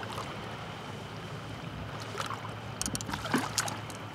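Water splashing as a bass is released over the side of a boat, a few sharp splashes and drips in the second half, over a steady low hum.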